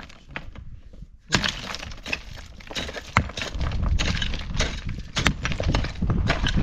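Hard objects knocking and cracking: a run of sharp knocks over a rough scraping noise, with a low rumble coming in about halfway through.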